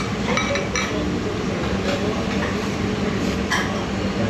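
Tableware clinking: a few short ringing clinks of dishes and cutlery in the first second and another about three and a half seconds in, over steady background din.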